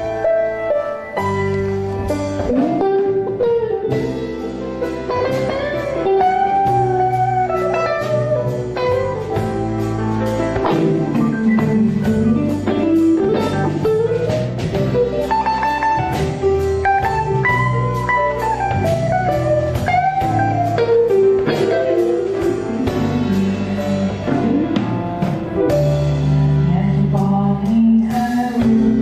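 A song with a melodic electric guitar lead, its notes bending in pitch, over a steady band backing of bass and drums.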